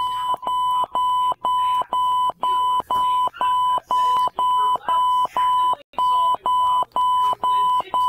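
Honeywell 6270 alarm keypad beeping its exit-delay countdown after being armed in Away mode: a steady train of short beeps on one unchanging tone, about two a second, with one slightly longer break about six seconds in.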